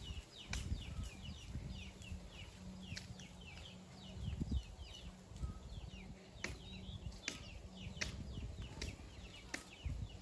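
Birds chirping in a steady stream of short, falling high notes, with a few sharp clicks scattered through.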